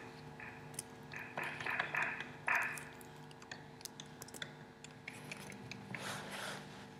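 Soft scuffs, rustles and scattered clicks of dancers' bodies and shoes moving on a studio floor, with a longer scuff about six seconds in, over a steady low room hum.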